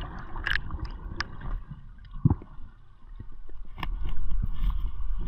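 Muffled underwater sound heard through a camera's waterproof housing: low rumbling water movement with scattered short clicks and knocks, dipping quieter around the middle and picking up again as a hand reaches into the seagrass on the bottom.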